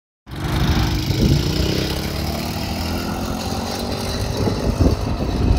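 Tao Tao 125cc ATV's single-cylinder four-stroke engine running under throttle as the quad pulls away, its pitch rising steadily. Wind buffets the microphone toward the end.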